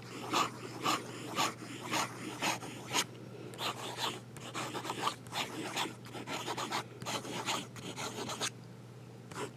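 Broad fountain pen nib scratching across paper in fast writing strokes, about two strokes a second at first, then quicker and lighter, stopping about a second before the end.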